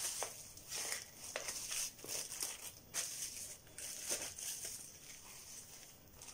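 Clear plastic bag crinkling as hands wrap and smooth it around a plastic tray of dough. The crackles are irregular and grow sparser and quieter after about four seconds.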